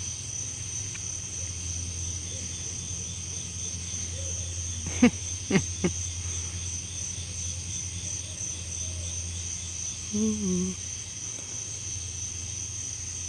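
Steady, high-pitched night chorus of crickets and other insects over a low steady hum. About five seconds in come three quick calls sweeping sharply downward, and near ten seconds in a short low call.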